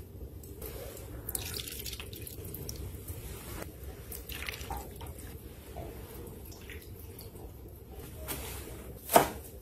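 Quiet clinks and drips of a spoon and ladle working through broth and cooked beef over a low steady background rumble, then a sharp knock on a wooden cutting board near the end.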